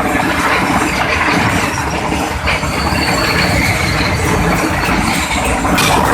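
A train passing directly over a phone placed at track level, heard from beneath the cars. Its wheels run over the rails with a loud, steady rumble and clatter.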